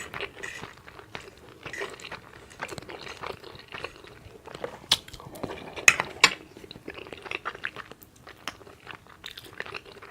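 Close-miked open-mouth chewing with wet lip smacks, a dense irregular run of short clicks, a few of them sharper about halfway through.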